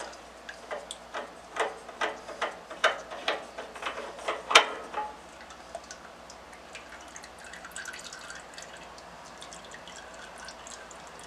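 Motor oil dripping from the oil filter of a Tecumseh Enduro overhead-valve mower engine into a catch container as the filter is loosened. There is a run of drips about two a second, the loudest about four and a half seconds in, then only faint ticks.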